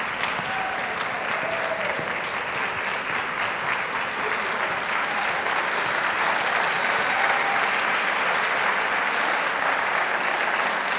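Audience applauding steadily, a little louder from about halfway through.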